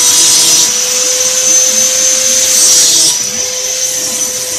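Small geared DC motor of a hobby conveyor-belt and robotic-arm model running with a steady high whine and a rushing hiss that swells and fades.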